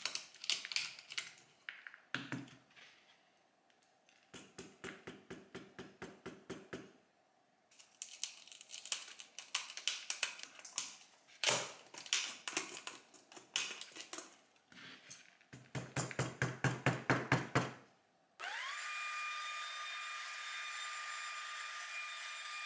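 Small clicks, ticks and scrapes of a flathead screwdriver prying broken plastic remnants out of the plastic socket ends of headlight adjuster rods, with a quick even run of ticks about five a second a few seconds in. About 18 seconds in, an electric heat gun switches on, rises briefly in pitch and then runs steadily with a whine.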